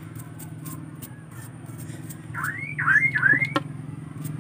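A toothbrush scrubbing the bark of a potted grapevine's trunk in short scratchy strokes, to work pests out of the crevices, over a steady low hum. About halfway through, three quick rising whistles sound in a row.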